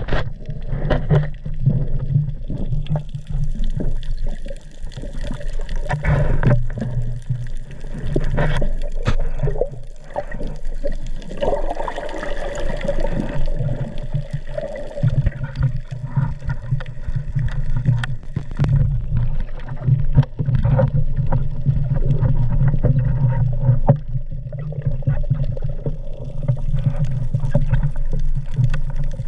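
Underwater sound through an action camera's waterproof housing: a continuous low rumble with scattered clicks and knocks as a diver swims with a pole spear.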